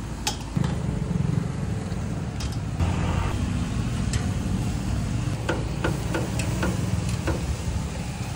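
Street background noise: a steady low rumble, louder from about half a second in, with a dozen or so short, sharp clicks and knocks scattered through it, several close together near the end.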